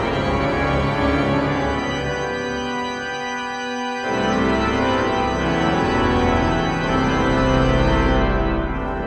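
Pipe organ playing sustained chords. A new, louder chord with deep pedal bass comes in about four seconds in.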